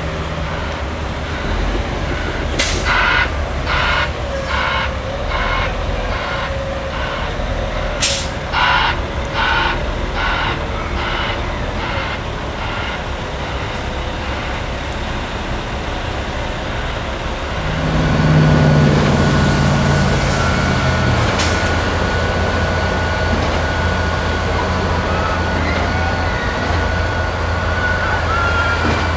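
Heavy construction machinery running with a steady drone, with two runs of evenly spaced warning beeps early on. About two-thirds of the way through an engine revs up and its pitch then falls, and a steady high whine continues after it.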